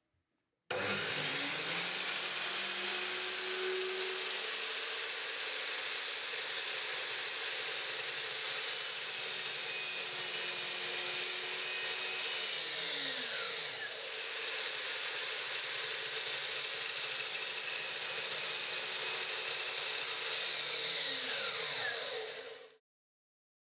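A GMC DB305SMS 305 mm sliding mitre saw's 1800 W motor starts and runs at speed while the blade cuts a depth-limited trench across softwood timber. Its pitch sags briefly about halfway through, and near the end the motor winds down with a falling whine.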